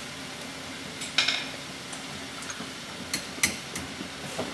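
Light metal clicks and clinks from hands working the brake hose fitting on a car's disc brake caliper, with a quick run of sharp ticks about three seconds in.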